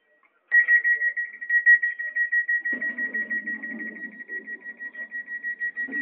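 Train door warning signal: an electronic beep at one steady high pitch, pulsing rapidly, starting about half a second in. A low rumble joins underneath about three seconds in.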